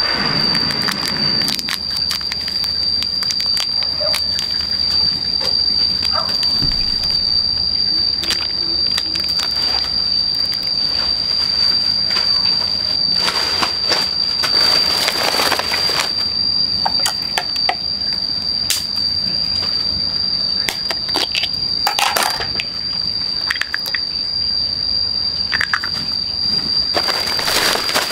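A steady high-pitched insect drone, with intermittent rustling and crackling over it; the loudest rustles come about halfway through and near the end.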